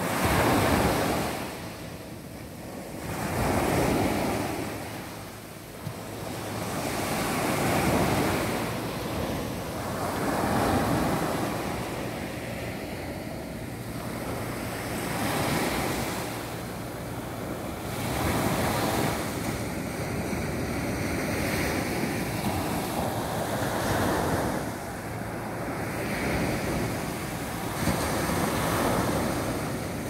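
Small ocean waves breaking and washing up a sandy beach, one after another, each surge of surf swelling and fading every three to four seconds.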